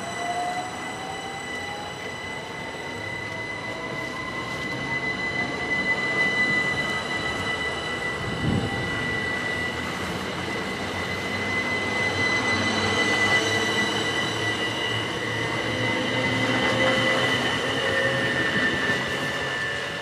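Class 375 Electrostar electric multiple unit pulling out and running past: the electric traction equipment whines with a tone that rises in pitch over the first few seconds, over steady high whistles and the rumble of the wheels. A single short thump comes about eight and a half seconds in.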